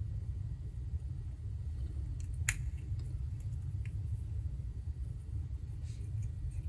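Faint clicks and handling noise from a small metal volume-control potentiometer being fitted together and its freshly greased shaft worked. One sharper click comes about two and a half seconds in, over a steady low hum.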